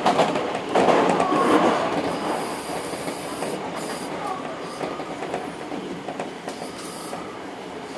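Hankyu train running noise heard from the front of the car: wheels clicking over rail joints near the start and a brief wheel squeal, the running sound fading as the train slows into a station.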